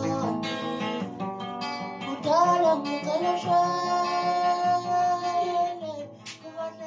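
A man singing and accompanying himself on an acoustic guitar. He holds one long note through the middle, and the song fades out near the end.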